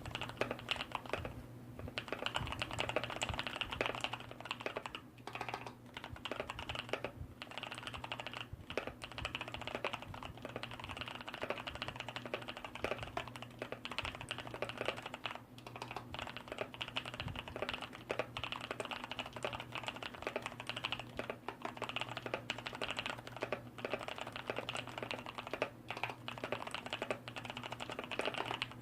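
Continuous fast typing on a Skydigital NKEY-K5 RGB mechanical keyboard with Kailh Brown tactile switches, its switch sliders and stabilizers lubed and the case sound-dampened. A faint steady low hum runs under the key strokes.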